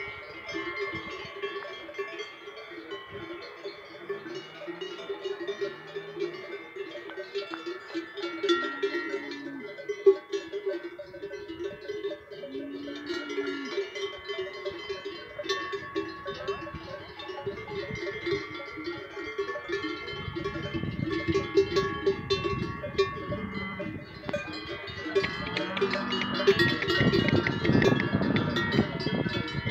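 Many cowbells worn by a grazing herd of cows ringing together, a steady overlapping clang of several different pitches. In the last ten seconds a low rustling noise joins in and the whole grows louder.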